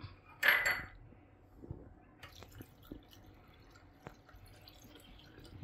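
Water poured from a steel tumbler into a steel bowl of washed rice and grated coconut, with a metallic clink of the spoon against the bowl about half a second in and a few light taps after it.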